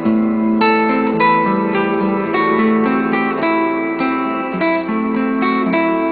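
Solo acoustic guitar playing a slow melody in plucked notes over a bass line, each note ringing on.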